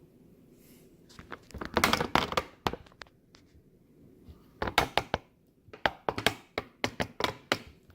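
Handling of small robot parts at close range: a run of sharp clicks, taps and light knocks in two bursts, about a second in and again from about halfway to near the end.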